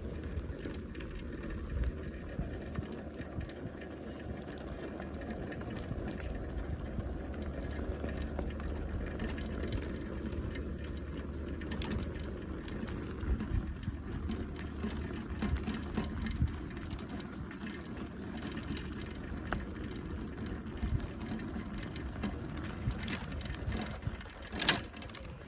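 Bicycle ridden over a rough path: a steady rumble of tyres with scattered clicks and rattles, and a sharper clatter near the end.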